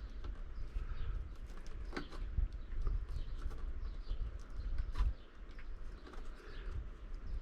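Wind rumbling on the microphone, with two sharp clicks about two and five seconds in as the ends of electrical wires are clipped with cutters.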